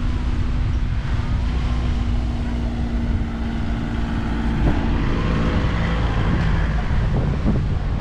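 Wind buffeting the microphone outdoors, with a steady motor hum that stops about six seconds in, and snatches of passers-by's voices.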